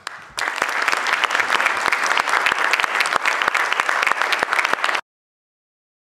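Audience applauding: dense, even clapping that starts about half a second in and is cut off suddenly about five seconds in.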